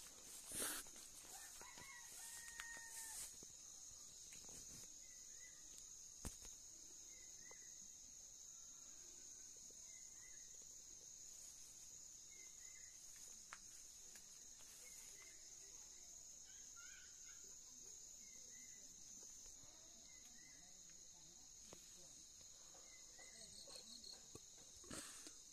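A rooster crows faintly once, about two seconds in, over a steady high insect drone and small chirps that recur every second or two. A few soft footsteps or rustles in vegetation come near the start and again near the end.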